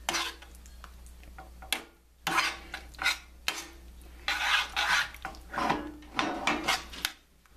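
Metal spoon stirring a thick cream-and-cheese sauce with chicken pieces in a stainless steel pan, scraping against the pan in irregular strokes roughly every half second to a second.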